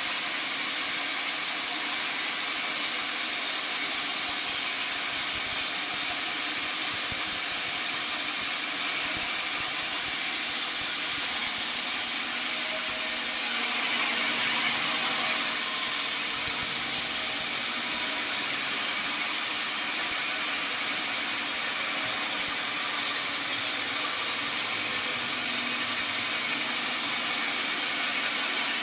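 Sawmill saw machinery running steadily, a continuous hissing mechanical noise that grows a little louder and brighter about halfway through.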